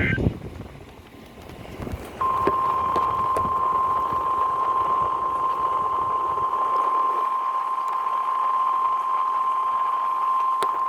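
NOAA Weather Radio warning alarm tone: one steady, unbroken high tone that comes on about two seconds in and holds, over radio hiss. The tone signals that a warning message follows, here a river flood warning.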